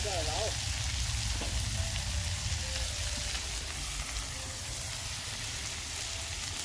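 Chopped onions, tomatoes, peas and green chillies sizzling steadily in hot oil in a steel kadhai over a wood fire, while a spoon stirs them: the tadka is frying.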